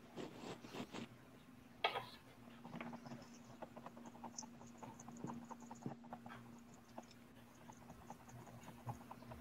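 Faint, quick patting and scratching of a paint sponge dabbed again and again against a canvas, with one sharper click about two seconds in, over a steady low hum.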